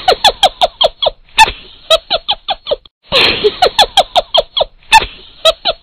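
A comic squeaking sound effect laid over the clip: a loud opening burst, then a rapid run of short falling squeaks, about six a second. It plays once and then again, identically, about three seconds in.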